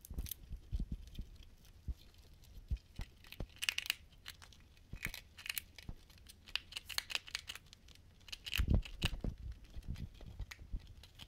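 Two degus gnawing at a hanging heart-shaped treat of pressed seeds, flowers and herbs: irregular crunching, crackling and small clicks as bits are bitten off. A louder bump about three quarters of the way through.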